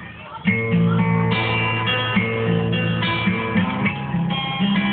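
Acoustic guitar playing an intro of held chords and bass notes, starting about half a second in.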